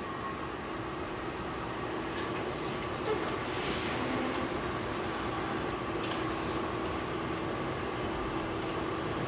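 Factory machinery running steadily, with a steady hum and a few constant tones, and a burst of high hissing about two seconds in that lasts several seconds.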